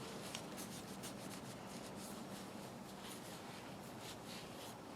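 Faint light rubbing and handling sounds with a few soft ticks over a low room hiss.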